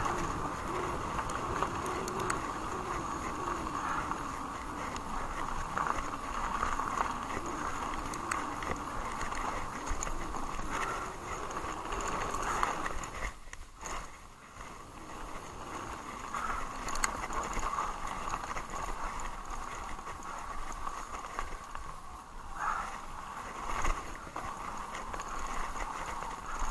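Haibike Sduro e-mountain bike rolling fast downhill on a gravel track: steady tyre noise on gravel with frequent small knocks and rattles from the bike over bumps. The noise drops briefly about halfway through.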